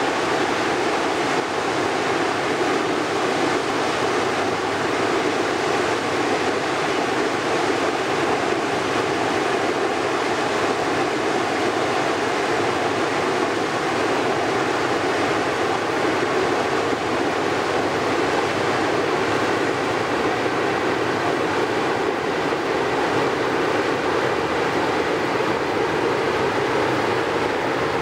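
Loaded Rhine inland cargo vessel passing close by: a steady rush of water along its hull and bow wave, mixed with the low drone of its ship's diesel.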